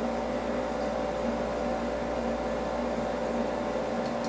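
Steady mechanical hum, with a few light clicks near the end.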